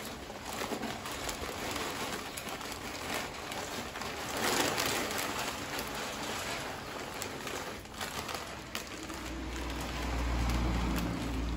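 Cherry wood pellets pouring from a bag into the metal hopper of a Traeger Pro Series 575 pellet grill: a dense, rain-like patter of small hard pellets rattling onto metal and onto each other, heaviest about halfway through. A low rumble joins near the end.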